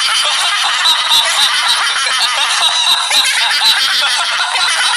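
High-pitched, sped-up cartoon voice laughing without a break, a giggling cackle.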